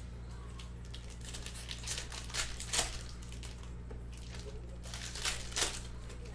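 Trading card pack wrappers, 2020 Panini Absolute retail fat packs, being torn open and crinkled in two bursts, about two seconds in and again near five seconds, over a steady low hum.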